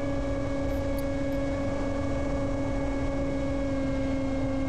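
Electric motor and propeller of an S800 Reptile FPV flying wing in flight, a steady whine at constant throttle over rumbling wind noise.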